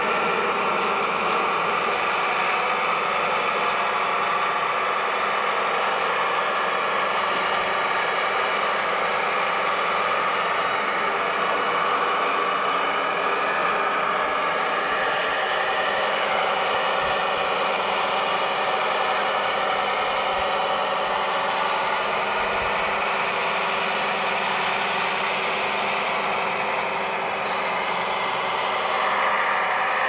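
Radio-controlled models' motors and gear drives running steadily, a whine made of several tones that shifts a little in pitch now and then.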